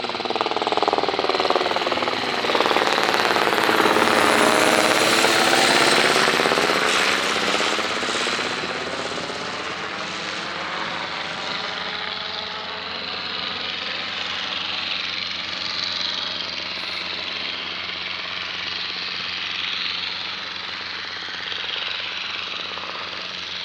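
Light propeller aircraft's piston engine and propeller droning as it passes. It grows loudest about four to six seconds in, with its pitch sweeping as it goes by, then fades to a steadier, quieter drone.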